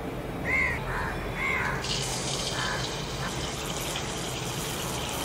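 A batter-coated suzhiyam ball in hot deep-frying oil, the oil starting to sizzle suddenly about two seconds in and sizzling steadily after that. Before that, a bird calls twice in the background.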